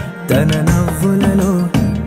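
Background music with a steady beat on the edited soundtrack. It drops out briefly at the start and comes back in about a quarter of a second later.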